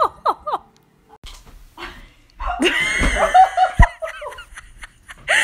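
A group of people laughing together, with bits of talk mixed in. Before the laughter, a few short rising-and-falling calls are heard in the first half second.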